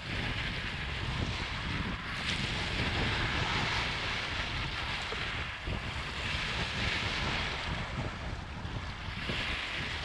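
Small waves washing up over a pebble shore and draining back through the stones, the wash swelling about every three seconds. Wind rumbles low on the microphone underneath.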